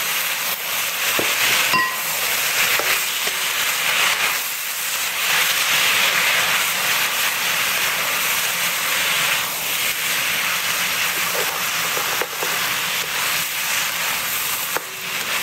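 Short noodles and vegetables sizzling in a nonstick wok as they are stir-fried and tossed with a silicone spatula: a steady hiss with a few light knocks of the spatula.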